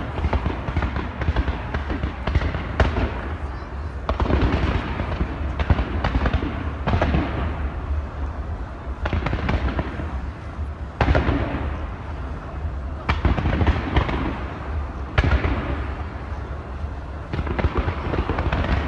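Fireworks going off in a steady series: a sharp bang about every two seconds, each with a long echoing tail, over a constant low rumble.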